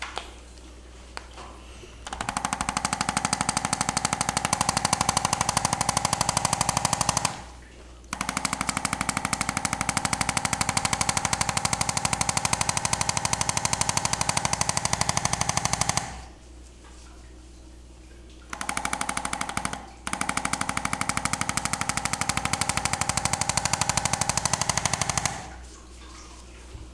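Handheld electric percussion massager hammering in rapid, even pulses with a motor hum, in several long runs of a few seconds each. It stops and starts again between runs, with one short burst near the end.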